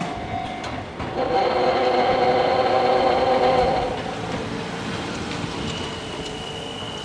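Kintetsu electric train passing over a level crossing, its running noise and steady humming tones loudest from about one to four seconds in, then easing off.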